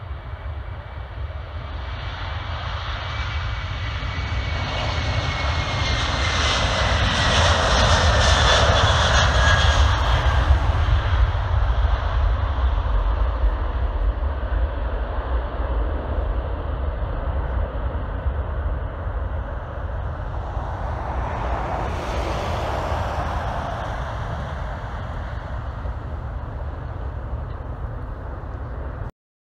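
Airbus A330 twin-engine jet airliner climbing out after takeoff, its engine noise building to a peak and then slowly fading, with a whine that falls in pitch as it passes. A second, shorter swell of noise comes about three-quarters of the way through, and the sound cuts off suddenly near the end.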